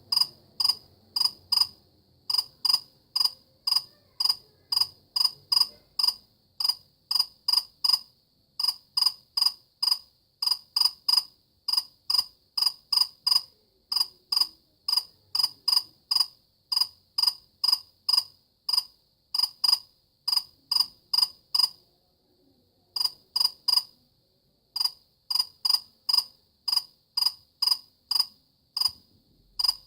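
A cricket chirping steadily and loudly: short, high-pitched pulses in quick chirps of a few pulses each, repeating without a break except for a pause of about a second two-thirds of the way through. The sound comes from the male rubbing its wings together.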